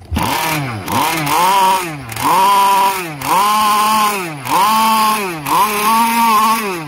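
Zenoah 32cc two-stroke engine of an RC model boat, with a tuned exhaust pipe, running out of the water and being revved up and down about six times, roughly once a second, each blip rising in pitch and falling back. It is the first test run of the freshly assembled, fully modified engine.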